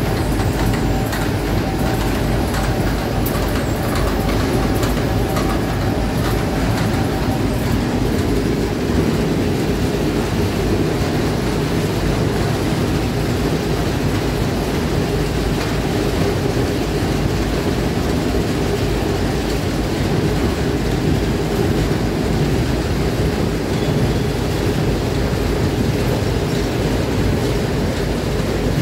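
Steady mechanical rumble and rattle of a NEWTEC Celox potato-sorting line running, with its conveyors and feed channels moving fingerling potatoes as they tumble through the machine. A faint steady whine fades out about eight seconds in.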